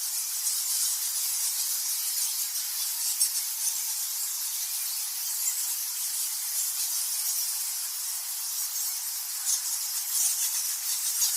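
Bats chattering: a dense, continuous stream of very high-pitched squeaks and clicks with nothing in the low end, getting a little busier near the end.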